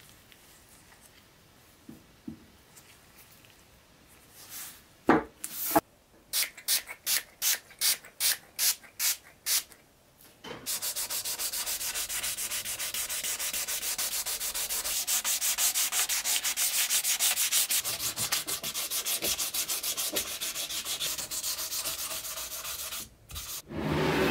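Sandpaper rubbing on the edge of a clear cast epoxy-resin block. It starts as about ten slow, separate strokes. Then comes about twelve seconds of fast, continuous sanding, which stops shortly before a brief louder noise at the very end.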